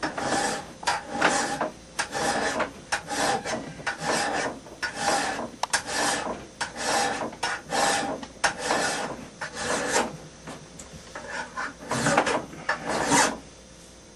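A hand file being pushed across the steel bevel of a hand axe, sharpening the edge with repeated rasping push strokes, roughly one a second. The strokes stop about a second before the end.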